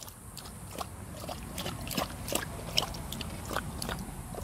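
Dog lapping milk and water from a plastic bowl: a quick, uneven run of wet laps and splashes, about three to four a second.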